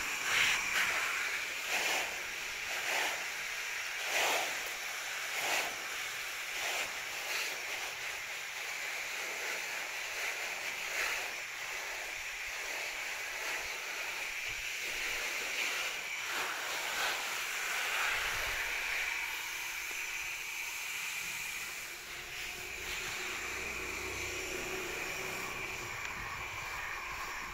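Garden hose shower nozzle spraying water: a steady hiss, with irregular louder spatters through the first ten seconds or so as the spray strikes broad leaves.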